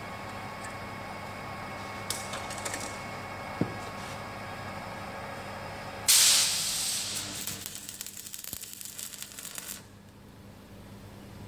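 Electric arc welding on steel: the arc strikes suddenly about six seconds in with a loud hiss, then sputters and crackles for a few seconds before cutting off. A few light clicks and a knock come before it.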